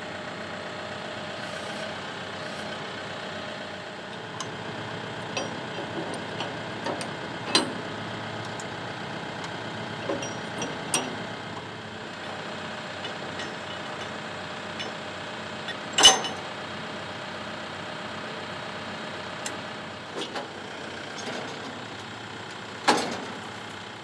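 TYM tractor's diesel engine idling steadily, with scattered sharp metal clanks from the three-point hitch being connected. The loudest clank comes about two-thirds of the way through.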